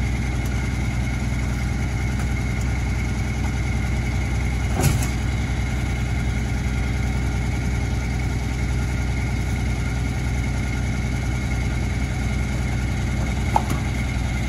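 Mack MR rear-load garbage truck idling steadily with a steady high whine over the engine. A single sharp clank about five seconds in, and a lighter one near the end, as junk is thrown into the rear hopper.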